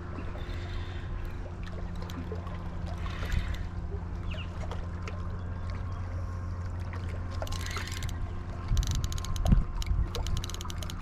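A boat's motor running steadily with a low hum, with light water sounds. About nine seconds in, a quick run of rapid clicks and knocks.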